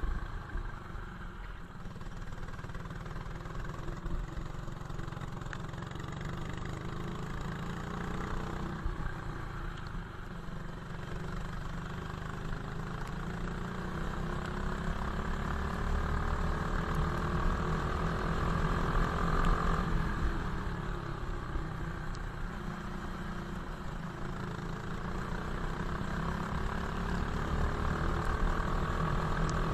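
Racing kart engine heard onboard, its pitch climbing steadily on acceleration, dropping sharply under braking about two-thirds of the way in, then climbing again, over a steady low rumble.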